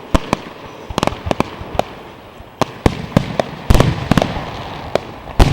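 Fireworks display: a string of sharp bangs at irregular intervals. The two heaviest, about two-thirds of the way through and near the end, are followed by a low rumble.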